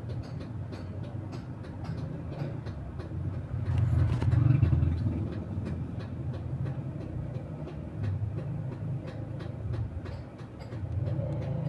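Low rumbling background noise that swells about four seconds in, with faint, rapid ticking throughout.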